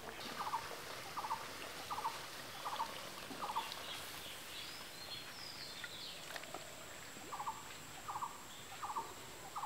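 An animal calling in short rattling notes, about one every three quarters of a second: five in a row, a pause of a few seconds, then three more. Thin bird whistles come in between.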